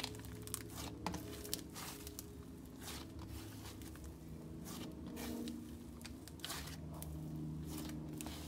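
Hands squishing, pressing and stretching thick slime, giving irregular sticky crackles and sharp little pops throughout.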